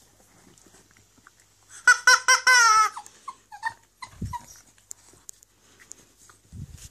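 Small dog whining: a few quick high whimpers run into one longer whine that falls in pitch, then a few faint peeps. She is anxious over the rubber toy she mothers as her puppy during a phantom pregnancy. Two low bumps follow later.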